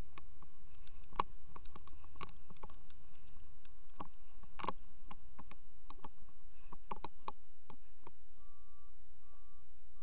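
Irregular sharp clicks and knocks close to the microphone over a faint low rumble that fades about four seconds in. About eight seconds in, a garbage truck's back-up alarm starts beeping steadily, roughly one beep every two-thirds of a second.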